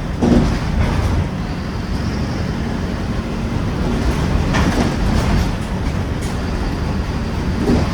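Mercedes-Benz OF-1721 bus's diesel engine running steadily while the bus drives, heard from inside, with road noise and a few knocks from the body or road bumps.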